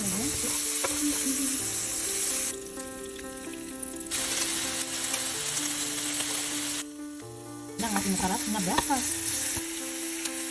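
Slices of meat sizzling as they fry in hot oil in a pan, a steady hissing that drops away and comes back abruptly a few times. Faint background music runs underneath.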